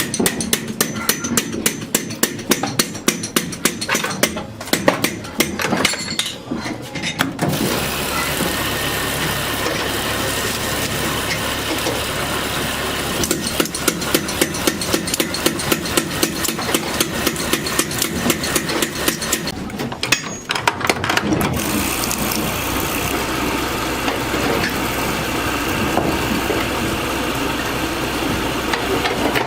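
Workshop machinery in a ceiling fan factory: a fast, even run of knocks for the first several seconds and again briefly about twenty seconds in, alternating with a machine running steadily with a low hum.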